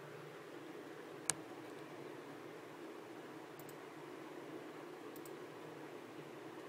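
Clicks of a laptop's buttons: one sharp click about a second in, then two faint quick double clicks, over a steady background hiss and hum.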